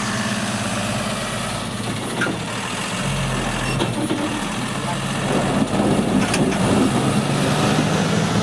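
Heavy truck's diesel engine running close by. A deeper rumble comes in about three seconds in, and the sound gets a little louder from about five seconds on.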